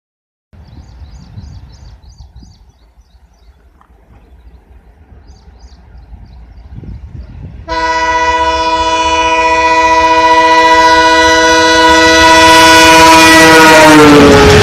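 WDM-3A diesel locomotive approaching at full speed: a faint rumble grows, then about halfway through its horn sounds one long, loud multi-tone blast. Near the end the horn drops in pitch as the locomotive passes and the roar of the train rises.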